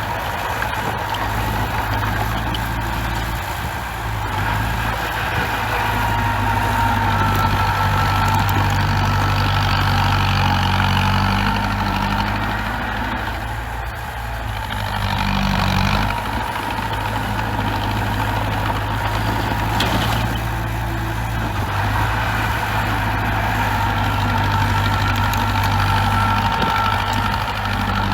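Bulldozer's diesel engine running steadily, with a faint high whine over its low drone, the level swelling and easing a little.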